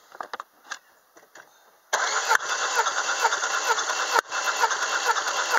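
Citroen C4 1.6 16V petrol engine cranked over on its starter motor, beginning about two seconds in with a brief break near four seconds, for a compression test of the first cylinder, which reads 14 kg/cm². Light clicks of handling the gauge come before it.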